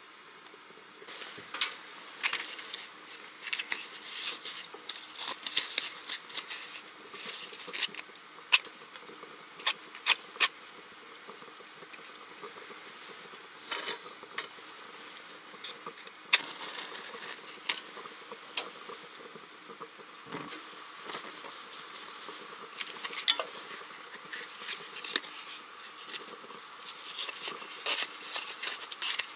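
Hands handling small objects at a stove: irregular small clicks, scratches and rustles.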